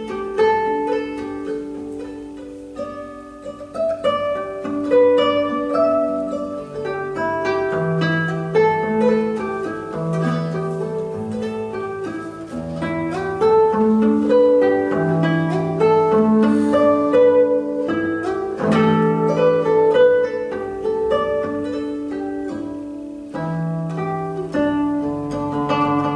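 Solo classical nylon-string guitar played live, fingerpicked: a stream of plucked upper notes over held bass notes that change every second or so.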